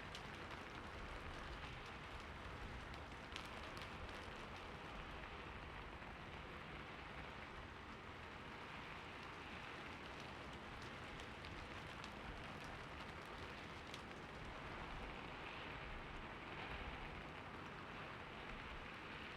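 Steady, faint rain falling, with scattered small drop ticks, used as an ambient background bed.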